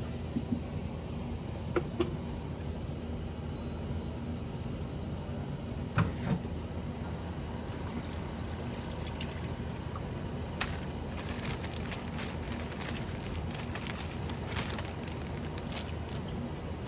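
A few light clicks and knocks over a steady low hum, then water running and splashing from about eight seconds in.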